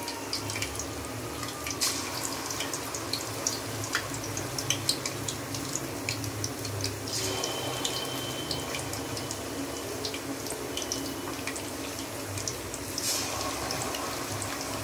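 Marinated chicken pieces deep-frying in hot oil: a steady sizzle with many small pops and crackles.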